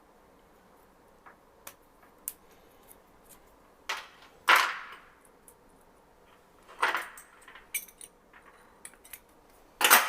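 Punch-down tool seating wires into a 110 block: a few sharp, separate clacks, the loudest about halfway through, with light ticks of wire and tool handling between.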